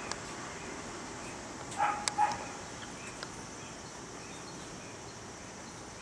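A dog barking a few short times about two seconds in, over faint steady outdoor background noise.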